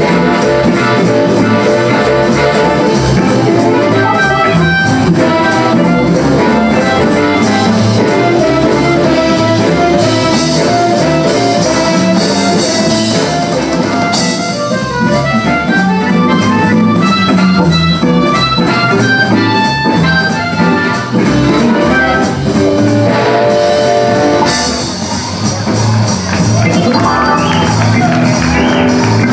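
Live blues band playing: amplified harmonica played through a handheld microphone, over electric guitar, organ and drums.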